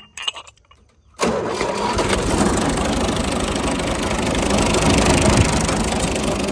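The three-cylinder diesel engine of a New Holland (Fiat) 480 Special tractor being cranked over by its starter, loud and steady for about five seconds. It begins abruptly about a second in and stops near the end.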